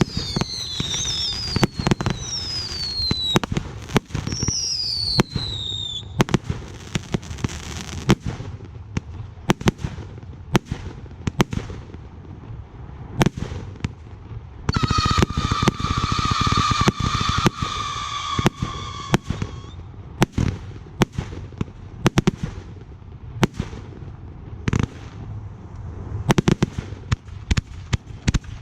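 Aerial fireworks display: a steady string of sharp bangs and crackling shell bursts. Falling whistles sound in the first few seconds, a long whistle with several tones, dropping slightly in pitch, runs from about 15 to 20 seconds in, and a quick run of reports comes near the end.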